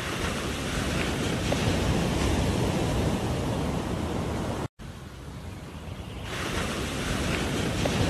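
Surf washing on a sandy beach, a steady rush of noise mixed with wind on the microphone. It cuts out for an instant a little under halfway through, then swells back up.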